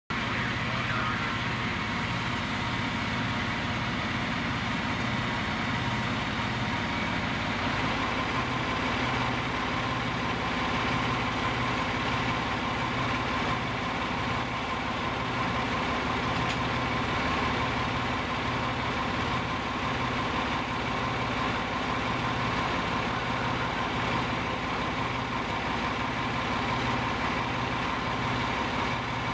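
Fire engine's engine running at idle: a steady mechanical drone with a regular low throb.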